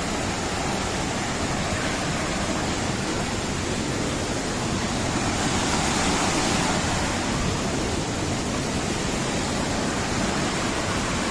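Stream water rushing steadily through narrow gaps between large boulders at the foot of a waterfall, a continuous even roar that swells slightly about halfway through.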